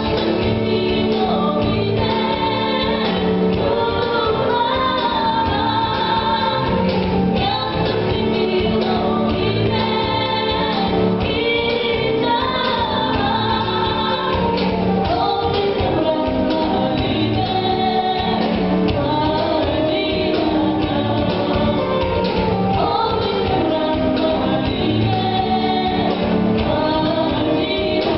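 Folk song with a group of voices singing together over instrumental accompaniment, playing for a stage dance.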